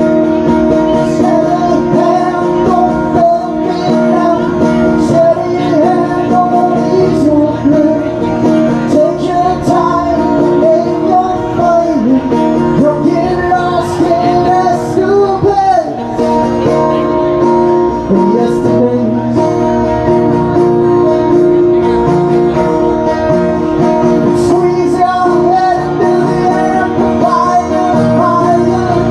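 Live music: a man singing while strumming a guitar, with no break between lines.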